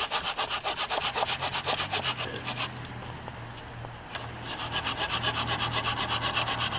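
Hand saw cutting through a wooden pole, to trim it to length, in quick, even back-and-forth strokes. The sawing stops for nearly two seconds about halfway through, then starts again.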